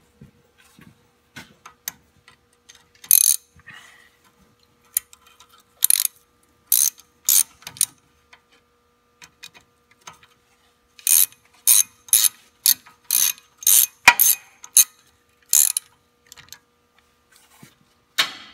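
Hand ratchet with a small socket clicking as it tightens a grease nipple into the cap of a rebuildable uniball joint. The clicks are sharp and come in short runs, the longest near the middle, at about two a second.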